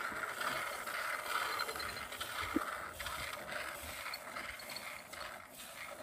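Goat being hand-milked: streams of milk squirting into a plastic bucket of frothy milk with a continuous hissing spray.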